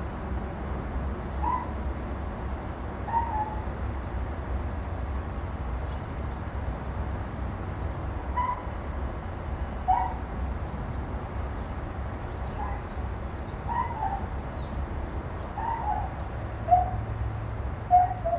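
A dog crying: short, high whimpering yelps, about ten in all, spaced irregularly a second or more apart, over a steady low rumble.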